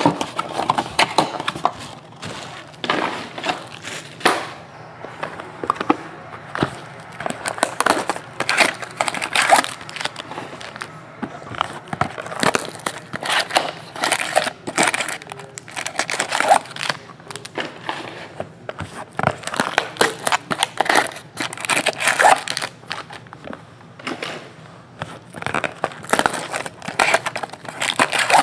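Clear plastic shrink wrap crinkling and tearing as it is pulled off trading-card boxes, in irregular crackles throughout.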